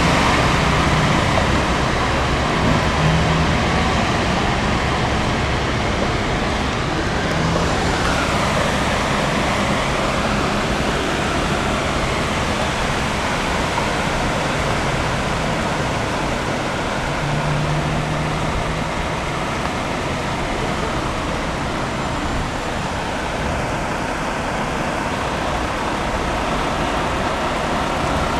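Traffic on a flooded road: a steady rush of wet tyres and engines from cars and lorries driving through standing water. Now and then a heavy vehicle's low engine hum stands out.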